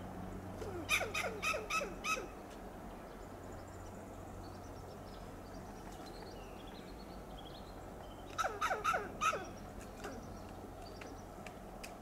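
Western gray squirrel giving its loud alarm call: two bouts of about five quick, harsh barks, each dipping in pitch, one about a second in and another about eight seconds in. It is the call squirrels give to warn of a predator or scold an intruder.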